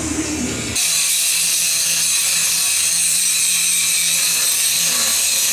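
Handheld angle grinder grinding along a welded steel gate frame: a loud, steady, hissing grind that starts suddenly about a second in.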